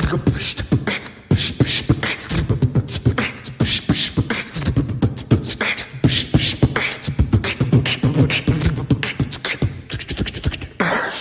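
Beatboxing: an all-vocal beat of quick, sharp clicks and thumps over a low hum.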